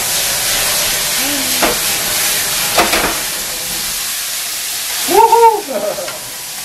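Beef frying hard in a Teflon frying pan over a high gas flame while being flambéed, a steady sizzle with two short knocks in the first half. Near the end a short, high-pitched voice-like cry rises and falls over the sizzle and is the loudest sound.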